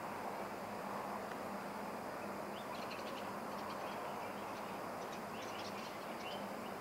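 Birds chirping in short bursts of high chirps, a few seconds in and again near the end, over a steady background hiss with a low hum.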